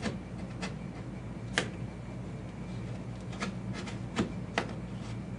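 X-Acto knife cutting through drywall along a scored outline: a series of short, sharp scraping strokes, irregularly spaced, over a steady low hum.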